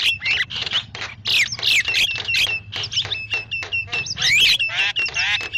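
Starling (jalak) chattering and singing: a rapid, unbroken run of harsh notes, short repeated whistles and quick sweeping calls, as used to lure wild starlings.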